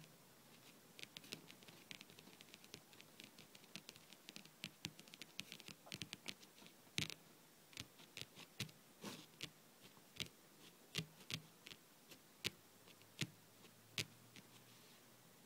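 Painted fingernails tapping on a tabletop. It starts as quick flurries of light taps, then turns into slower, louder single taps about a second apart, which stop shortly before the end.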